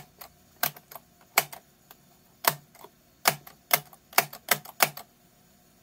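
Telescoping antenna of a vintage portable radio being pulled up and adjusted by hand, giving about a dozen irregular sharp clicks that stop about five seconds in.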